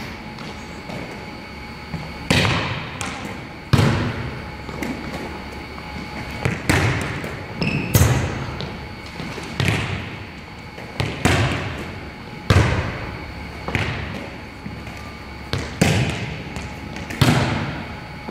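A volleyball being hit and passed back and forth, a sharp slap of hand or forearm on the ball about every one and a half seconds, each followed by a short echo.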